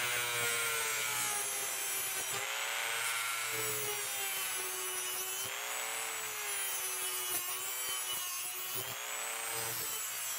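Dremel rotary tool with a cutoff wheel running at high speed and cutting off a steel brad nail flush with the wood. Its whine sags and recovers in pitch again and again as the wheel is pressed into the nail.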